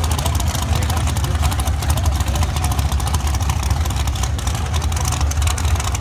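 Drag-race car engines running at low speed on the track: a steady deep rumble with a fast crackle over it.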